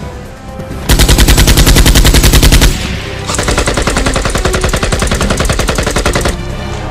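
Two long bursts of rapid automatic gunfire. The first starts about a second in and lasts nearly two seconds; the second follows about half a second later and lasts about three seconds.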